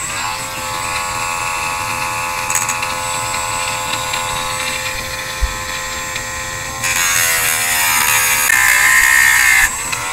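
A small high-speed rotary grinding tool runs with a steady high whine, grinding a flat spot onto the smooth steel shaft of a Hobbywing brushless motor so the pinion's grub screw can grip. About seven seconds in, a louder hissing grind joins as the bit bears on the shaft, the pitch sagging under the load, and it eases off about a second before the end.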